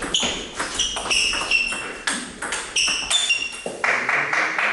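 A fast table tennis doubles rally: the celluloid ball clicks in quick succession off the rubber bats and the table. Short high squeaks, most likely sports shoes on the hall floor, come in among the hits.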